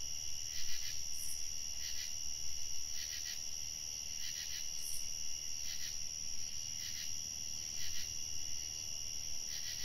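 Crickets and other insects calling in a steady high trill, with a second insect sounding in short pulses about once a second. Two brief higher chirps stand out, about a second in and near the middle.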